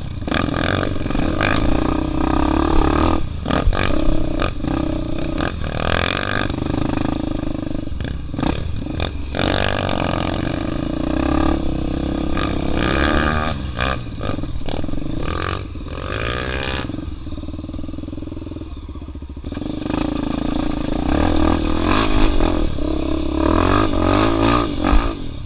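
Honda Tornado trail bike's single-cylinder four-stroke engine, bored out to 293 cc, running throughout and revving up and down unevenly, with scattered clatter.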